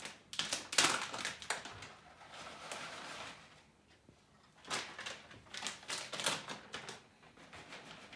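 A plastic bag of shredded cheese crinkling and rustling as it is handled and shaken out into a saucepan. The noise comes in two spells: one over about the first two seconds and another from about five to seven seconds in.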